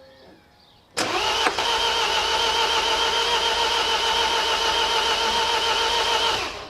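Starter motor cranking the MINI R56's 1.6 HDi DV6 diesel engine. It starts suddenly about a second in, turns over steadily with a slight rhythmic waver for about five seconds, then stops. The engine does not fire: the diesel won't start.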